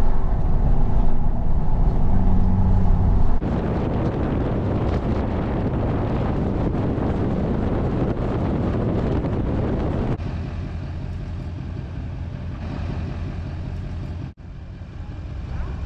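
Car driving at highway speed: steady road and engine noise, which becomes a louder, rougher rush of wind and road noise about three seconds in. About ten seconds in it falls back to a quieter, steady vehicle hum, broken by a short gap near the end.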